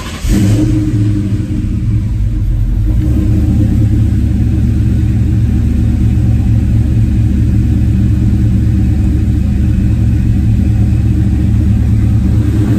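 Ford 4.6 two-valve V8 with aftermarket camshafts catching right at the start, the moment the gas pedal is let off after being cranked with it floored. It then settles into a loud, steady idle that echoes in a closed garage.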